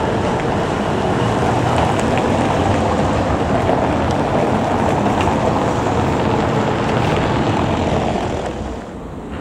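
GT4 articulated tram rolling along street track, with car traffic passing close by, as a steady loud noise with a few faint clicks. The level drops near the end.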